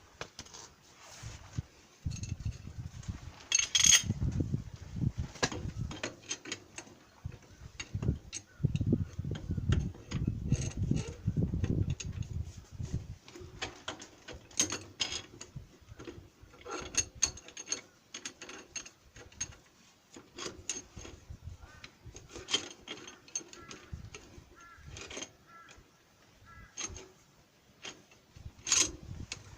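Hand tools working on the wheel hub of a walking tractor: irregular metal clicks, clinks and knocks, with a low rumble of handling in between.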